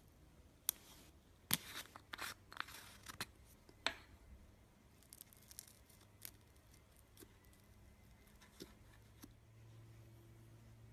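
Slime being pressed and worked by hand, giving a quick run of sharp crackles and clicks in the first four seconds, then fainter scattered clicks.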